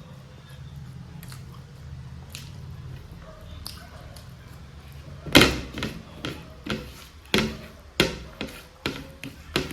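Close-miked eating sounds: quiet chewing, then from about halfway a run of loud, sharp wet smacks, roughly two a second.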